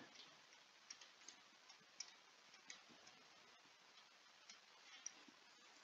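Near silence with faint, irregular ticks of a stylus tapping a tablet screen during handwriting.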